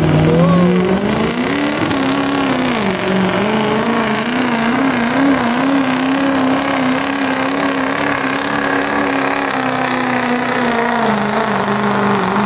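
Turbocharged diesel pickup engine revving up under full load while pulling a sled. A high turbo whistle climbs steeply over the first two seconds, then the engine holds high revs with a slight waver, easing off a little near the end.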